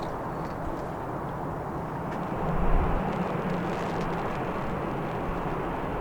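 A Boeing 787-10 airliner's jet engines making a steady low rumble, mixed with wind buffeting the microphone in strong gusty wind; a gust swells the rumble about two and a half seconds in.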